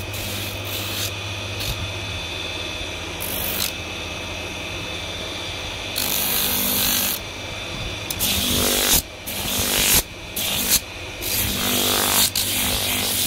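Electric motor spinning a sanding drum on its shaft with a steady hum, while a wooden spatula is pressed against the drum. The sanding gives a loud rasping noise in short strokes, about a second each, coming in quick succession from about six seconds in.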